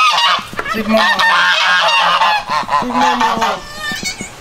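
A flock of domestic geese honking, many calls overlapping one another with little pause.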